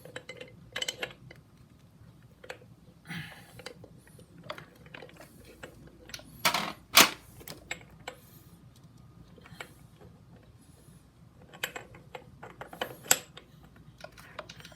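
Scattered metal clicks and clinks of Harley Dyna primary drive parts being handled and fitted by hand, with two louder clanks about six and seven seconds in.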